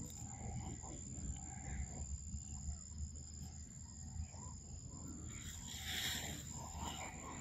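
Faint close-up feeding sounds of macaques eating a mango: small crackles and rustles, over a steady high-pitched insect whine. A brief hissing noise swells and fades about six seconds in.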